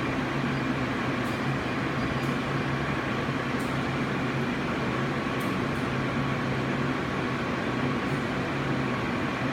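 Steady mechanical hum with a constant low tone, with a few faint light ticks scattered through it.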